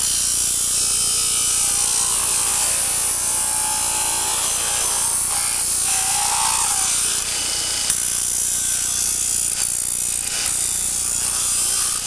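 Multitool belt sander on a bench grinder running while a sheet-metal patch panel is trimmed against its abrasive, giving a steady, loud, hissing grind that stops at the very end.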